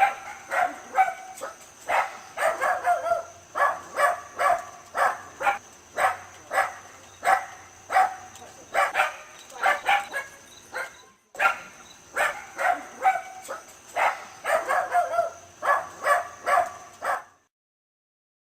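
Dachshund barking in a long run of short, sharp barks, about two to three a second, with a brief pause about eleven seconds in; the barking stops shortly before the end.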